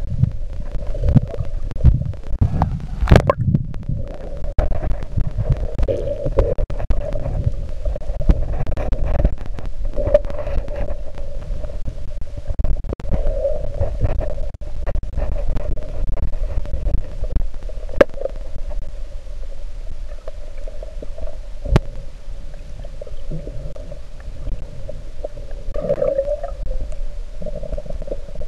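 Muffled, low underwater rumbling and sloshing of water moving around a submerged camera during a swim, with a few sharp clicks.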